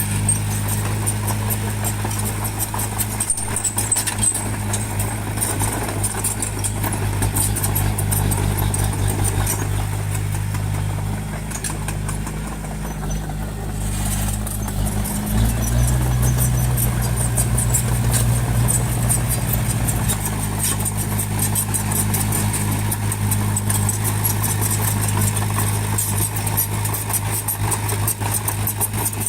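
Heavy construction machine's diesel engine, most likely the bulldozer's, running steadily with a fast light clatter over it. About halfway through the engine note changes and grows stronger for about five seconds, then settles back.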